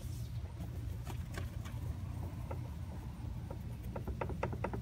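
Blue shop towel wiping a plastic headlight lens with mineral spirits to strip oils before clear coat: soft rubbing with scattered light clicks, ending in a quick run of ticks. A steady low hum sits underneath.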